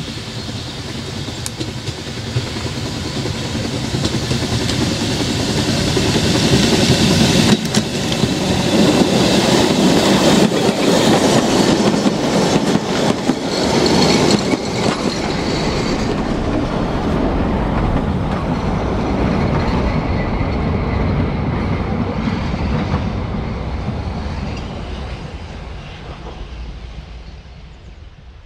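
Narrow-gauge steam locomotive Palmerston, an 1864 George England 0-4-0, approaching and passing close by with its train, followed by the coaches rolling past on the rails with a clickety-clack. The sound builds to its loudest about eight to fifteen seconds in, then fades away near the end.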